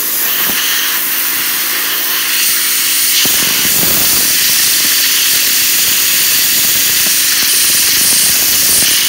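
Compressed air blasting from an air compressor's hose nozzle onto a LEGO fidget spinner to spin it up: a loud, steady hiss.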